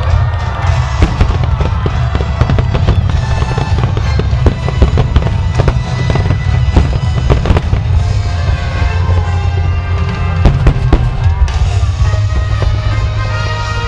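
Aerial firework shells bursting in quick succession, many sharp bangs one after another, with the show's music playing underneath.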